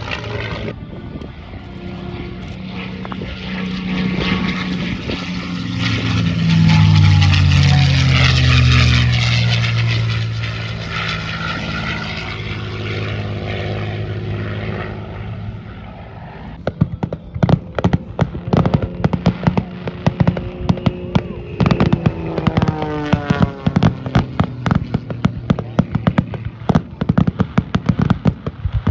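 Aircraft engine passing by, its note growing louder to a peak then sliding down in pitch as it moves away. From about two-thirds of the way through, a rapid run of crackling pops sounds over a fainter engine.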